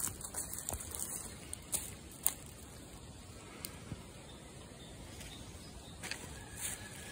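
Footsteps crunching through dry leaf litter and twigs. Several sharp crackles come in the first couple of seconds, then fewer and softer steps over a faint, steady outdoor background.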